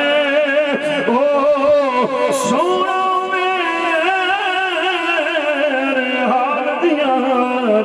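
A man singing a Punjabi devotional couplet without accompaniment, drawing out the vowels in wavering, ornamented notes and then holding one long note that sinks slightly in pitch before it ends near the close.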